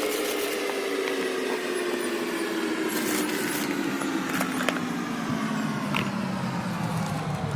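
A spinning machine's hum slowly falling in pitch as it winds down, with a few light clicks and taps.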